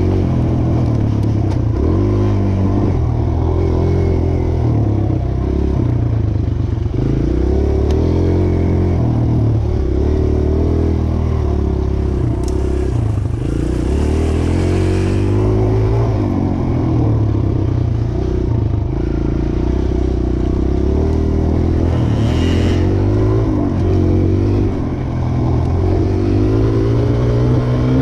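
Dirt bike engine running while being ridden, its pitch rising and falling over and over with the throttle and gear changes.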